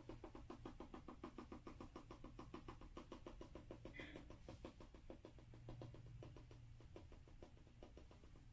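Faint, quick rhythmic rattling of a hand-shaken container sprinkling scenery ground cover onto a model railroad layout, about six shakes a second, growing sparser near the end.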